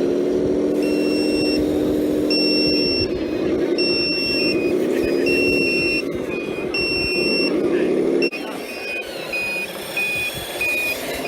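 RC scale truck's simulated engine sound revving up and down, with a reversing beeper sounding a regular beep about every second and a half. About eight seconds in the engine sound drops away and shorter, quicker beeps follow, about two a second.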